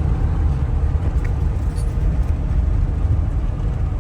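Steady low rumble of a vehicle on the move: engine and road noise from driving.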